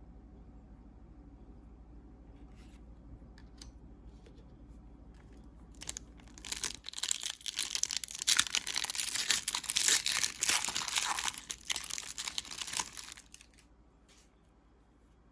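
A trading-card pack wrapper being torn open and crinkled. It starts about six seconds in, runs loud and crackly for about seven seconds, then stops, with a few faint clicks from handling before it.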